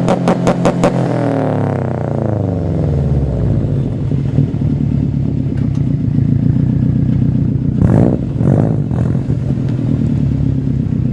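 2011 Subaru WRX STI's turbocharged flat-four on its stock unequal-length exhaust manifold, exhaling through a catless downpipe and a non-resonated Invidia N1 exhaust. It is held on the launch-control rev limiter with rapid popping, then the revs fall away over a couple of seconds to a steady idle. About eight seconds in come two short throttle blips.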